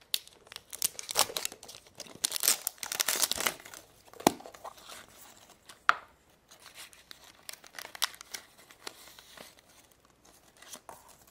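Surprise egg's wrapper being torn open and crinkled by hand, with two sharp snaps a few seconds in and lighter crinkling after.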